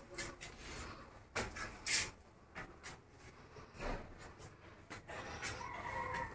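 A few faint footsteps and light knocks as a person climbs the last stairs and steps out through a doorway, over quiet background noise.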